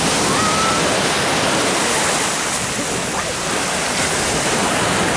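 Steady rushing of sea surf on the Azov Sea shore, with faint distant voices.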